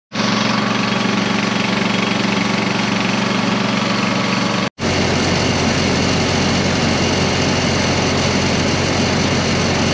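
Farm machinery engine running steadily, in two stretches split by a brief cut about halfway through; the second stretch carries a deeper hum.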